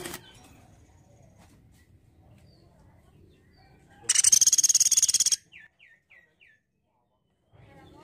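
Pelatuk beras (Sunda pygmy woodpecker) calling: one loud, very fast rattling trill lasting about a second, starting about four seconds in. Four short, soft falling notes follow.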